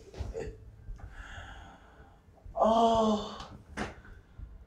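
A person breathes out audibly, then lets out a loud voiced gasp or groan about halfway through, followed by a short sharp click.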